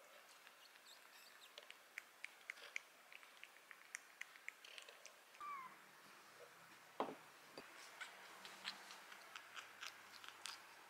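Faint kitten sounds: one short, falling mew about halfway through, over scattered small clicks and taps, with a single soft thump about seven seconds in.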